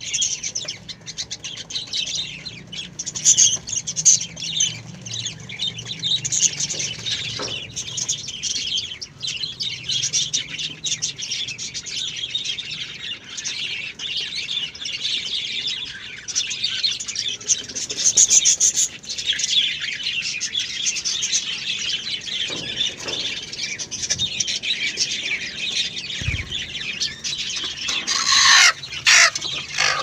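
Lovebirds chattering and screeching without a break, high-pitched, with a louder burst near the end.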